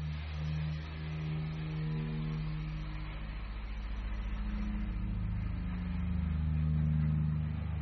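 Electronic ambient soundtrack generated by an interactive virtual reality installation: a low drone of held tones that slowly step to new pitches, over a soft steady hiss.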